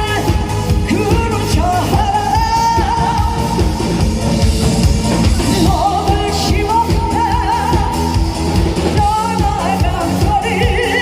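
A singer performing live over an amplified backing track with a steady beat, holding long notes with a wavering vibrato.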